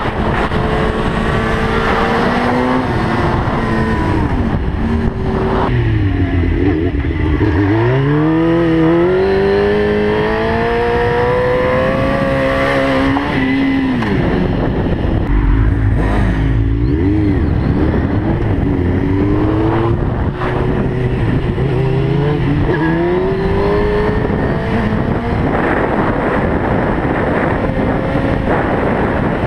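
Inline-four sport-bike engine heard from the rider's helmet camera, its pitch climbing in long pulls as it accelerates and falling back as it shifts or slows, several times over, with a steady rush of wind noise underneath.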